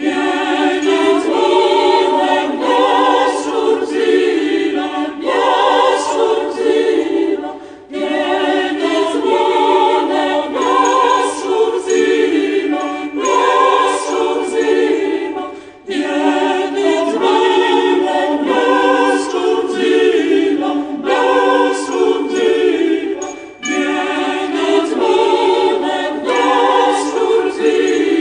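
A choir singing, with no bass instruments heard. The phrases break briefly about every eight seconds.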